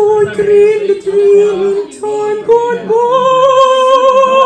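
A person singing high, drawn-out notes without clear words. A held note opens the phrase, a few shorter notes follow, and from about three seconds in a long high note rises slightly and is sustained.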